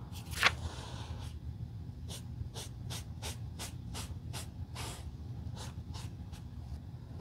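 Sponge rubbing a finishing coat onto the glossy white leather toe of a sneaker, in short scuffing strokes about four a second. A single louder scrape comes about half a second in.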